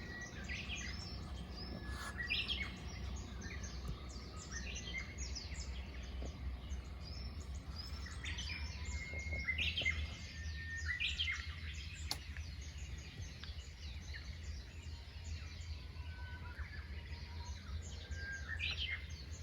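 Several small birds chirping and calling, many short overlapping chirps and whistles throughout, over a steady low background rumble.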